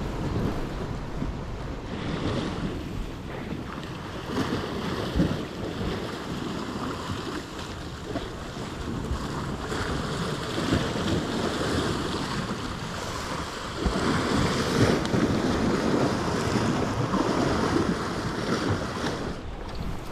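Sea waves washing against rocks, swelling and easing, with wind buffeting the microphone.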